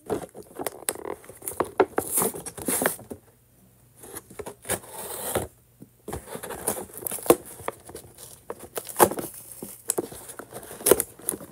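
Clear plastic toy-truck packaging being worked open by hand: irregular crinkling, cracking and clicking of the stiff plastic case, with a couple of brief pauses.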